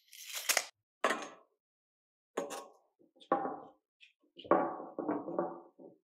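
A pencil scratches on copper pipe at the start, then the pipe knocks against a board a few times. Near the end a Monument rotary copper pipe cutter is turned around the pipe with a rattling scrape, scoring it to cut a section off.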